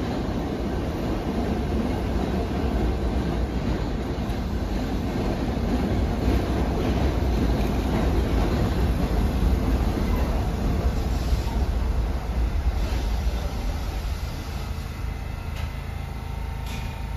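NYC subway train of R68-series cars running along the adjacent track, a steady rumble of steel wheels on rail that eases after about twelve seconds, with a brief high squeal near the end.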